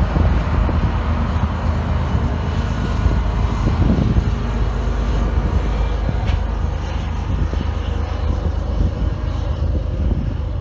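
BNSF diesel-electric locomotive pushing at the rear of an autorack freight train, its engine working under load on the climb with a steady low drone. The higher sounds fade over the last few seconds as it moves away.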